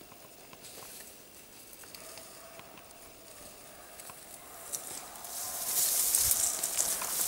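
Footsteps rustling and crackling through dry grass and brush, faint at first and growing louder from about five seconds in.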